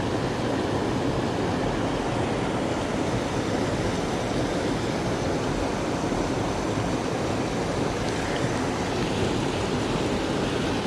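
Steady rushing of a small, rocky stream flowing over shallow stones and spilling over a low concrete weir.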